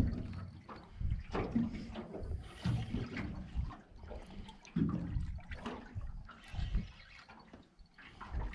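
Water sloshing and slapping against the hull of a small boat, in uneven surges.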